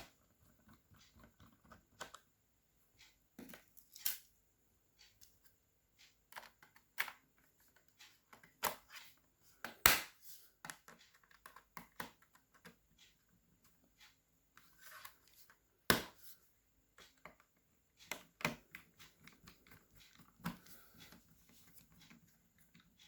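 Scattered irregular clicks and knocks from handling a laptop, with a few sharper knocks in between.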